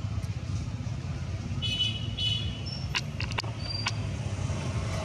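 Steady low background rumble, with two short high squeaky calls about two seconds in and a few sharp clicks and brief high chirps soon after.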